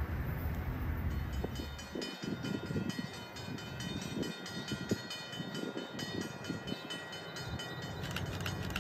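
A grade-crossing bell ringing with rapid, evenly repeated strikes while a train approaches from far off, with wind gusting on the microphone.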